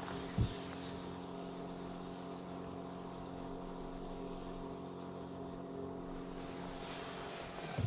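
Steady electric hum of a Minn Kota bow-mount trolling motor running, with a dull low thump about half a second in and another near the end.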